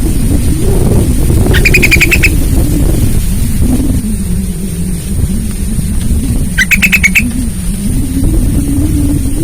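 Sooty-headed bulbul giving two short, fast chattering calls, about five seconds apart, over a loud, steady low rumble that wavers in pitch.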